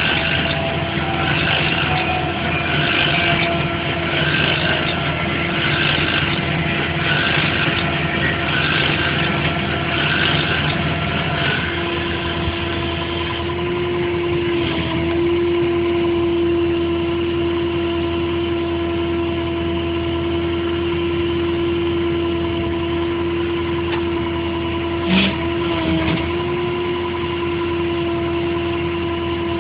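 Crane truck engine running steadily at idle. About twelve seconds in, a strong steady whine joins it and holds, and there is one sharp click near the end.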